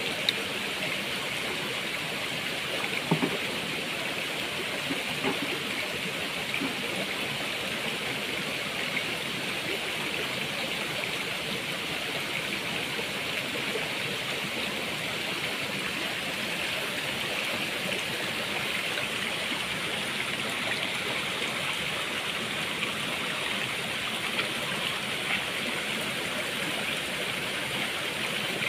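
Shallow mountain stream running over rocks, a steady rushing of water. A couple of brief clicks stand out in the first few seconds.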